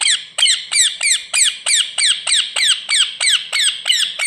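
Ringneck parrot making a racket: a fast, unbroken run of shrill calls, about three a second, each one sliding down in pitch.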